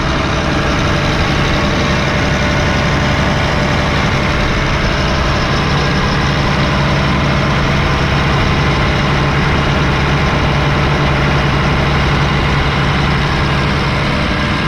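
Doosan DX520LCA-K tracked excavator's diesel engine running steadily, with a constant low hum and no revving.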